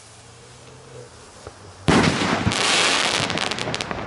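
Black Gemini firework rocket bursting overhead about two seconds in, followed by a shower of crackling that thins out near the end.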